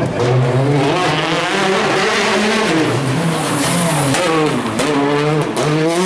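Peugeot 208 R5 rally car's turbocharged four-cylinder engine revving hard, its pitch repeatedly climbing and dropping with gear changes and lifts off the throttle, with a final rise near the end.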